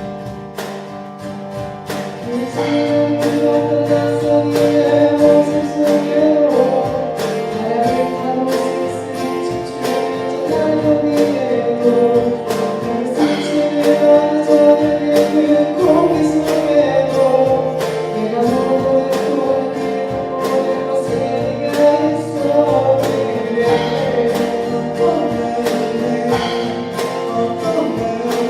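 Acoustic band ballad: acoustic guitar and piano with keyboard, and a voice carrying the sung melody. It swells louder about two seconds in.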